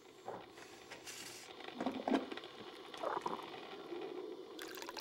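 Faint knocks and shuffles of movement, then near the end a steady hiss of liquid begins: coffee splashing in a drip coffee maker's glass carafe.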